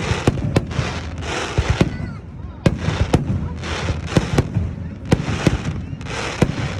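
Aerial fireworks going off in rapid succession: about fifteen sharp bangs at uneven intervals, with hissing, crackling bursts between them.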